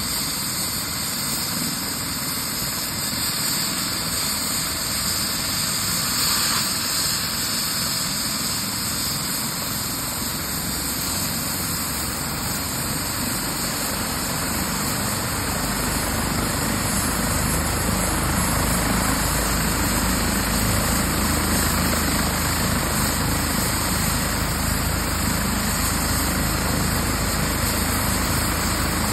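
Airbus H135 air-rescue helicopter starting up on the ground, its turbine engines running and main rotor turning, a steady mechanical rush of sound. About halfway through a low rumble comes in and the sound grows a little louder as the start-up proceeds.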